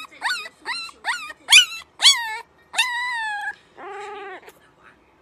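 Husky-type puppy howling: about six short high cries in quick succession, each falling in pitch, then one longer drawn-out cry and a lower wavering note.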